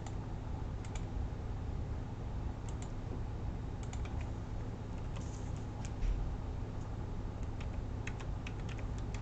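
Computer keyboard keystrokes in short, scattered groups as a number is typed in, over a steady low hum.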